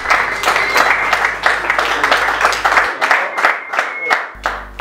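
Audience applauding and clapping, thinning out and dying away near the end.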